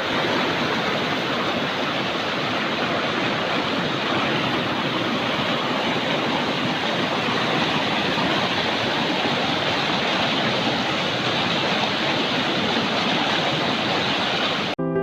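Steady rushing water, an even roar that starts and stops abruptly with hard edits.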